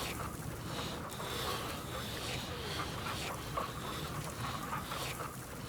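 Domestic ducks and chickens making short, soft calls at irregular intervals while feeding.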